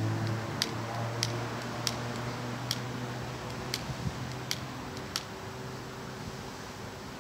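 A hand-held lighter's igniter clicked about eight times at uneven intervals, a sharp tick each time, without catching.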